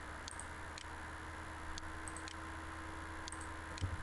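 Several faint, sharp computer-mouse clicks, irregularly spaced, as a line is drawn in CAD software, over a steady low hum and hiss. A brief low thud comes near the end.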